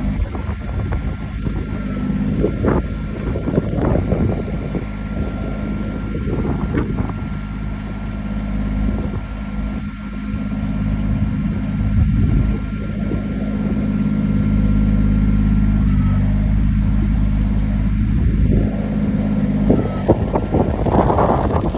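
Kubota backhoe's diesel engine running steadily under load, with intermittent rough, noisy stretches from the digging work.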